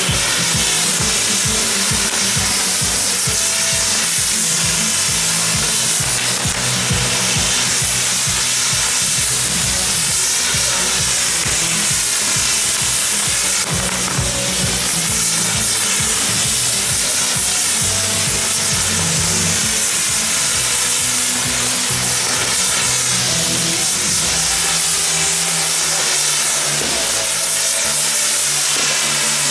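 Maltese mechanical ground fireworks, spinning wheels of fountains and sparks, hissing and sizzling steadily and loudly with a rapid crackle underneath.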